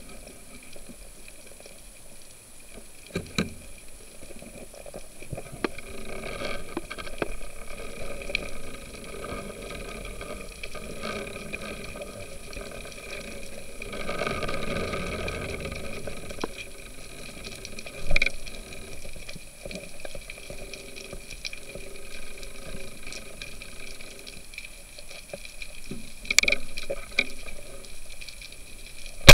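Underwater ambience heard through a diving camera's housing: a steady hum and water wash, with a few sharp knocks about three seconds in, near the middle and near the end, and a louder swell about halfway through.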